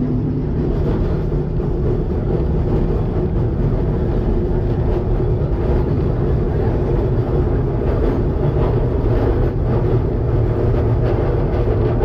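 W-class heritage tram running along the track, heard from inside the driver's cab: a loud, steady rumble of steel wheels on the rails.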